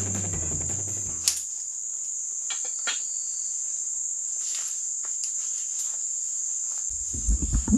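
Steady high-pitched drone of forest insects. Background guitar music fades out about a second in, a few faint snaps follow, and low rumbling noise comes in near the end.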